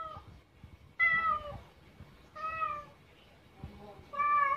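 Domestic cat meowing repeatedly: drawn-out meows about every second and a half, each sliding slightly down in pitch, with a softer, shorter meow just before the last one.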